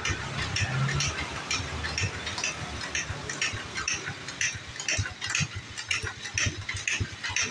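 Light metallic clicks and clinks from gears and shafts being handled in the open crankcase of a Kawasaki KLX 150 engine, about two short ticks a second.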